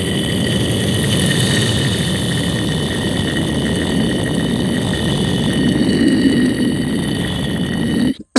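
A man imitating an aeroplane's engine with his voice, close to a microphone: a steady rushing drone with thin high whining tones held over it. It cuts off suddenly near the end.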